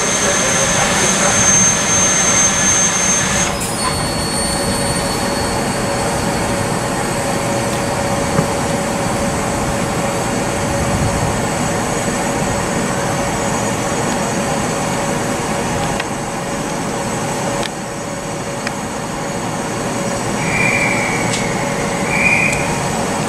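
A standing Southeastern Class 375 Electrostar electric train hums steadily with a high whine. About three and a half seconds in, the whine changes pitch with a click. Two short chirps come near the end.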